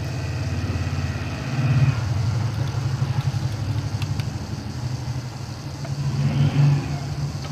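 A motor or engine running with a low throbbing, swelling louder about two seconds in and again near the end.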